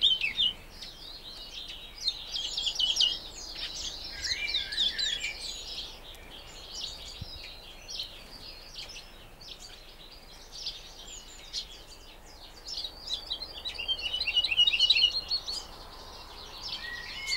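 Caged woodlark singing: phrases of rapid high notes lasting a few seconds each, with quieter pauses between them. The loudest phrase comes about three quarters of the way through.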